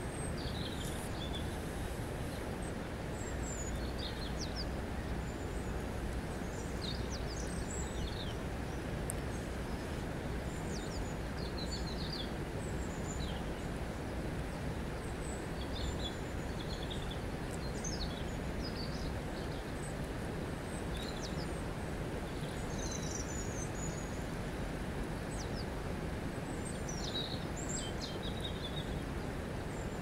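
River water flowing as a steady rushing noise, with small birds chirping throughout in short, high calls.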